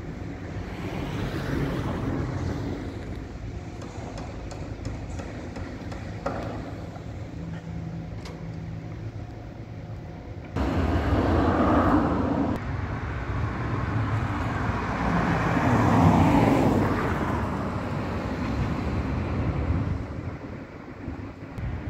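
Road traffic noise from the street, with cars passing. It jumps suddenly louder about halfway through and then swells twice as vehicles go by.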